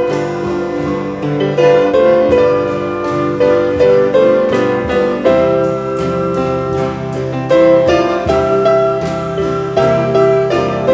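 Instrumental piano music with a steady beat and sustained chords.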